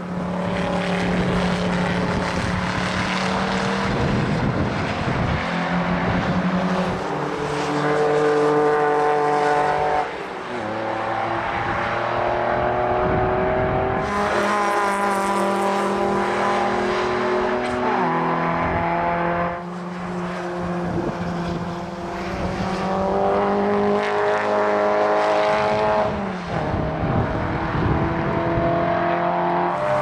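Historic race cars passing on the circuit one after another, engines revving up and dropping pitch at each gear change or new car. The cars include a Factory Five Cobra Daytona Coupé replica near the start, a Ford Escort in the middle and a Fiat Abarth near the end.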